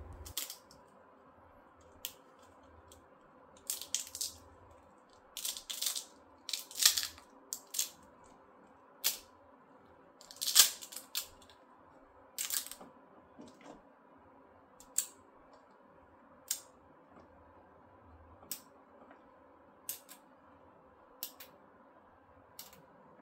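Resin 3D-print supports being snapped and broken off a printed wheel pattern by hand: irregular crisp snaps and crackles, some in quick clusters, others single, over a faint steady hum.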